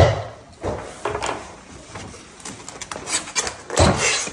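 White cardboard cake box being handled and pulled open: rustling, scraping and knocks of stiff paperboard, with a sharp knock at the start and a cluster of louder ones about four seconds in.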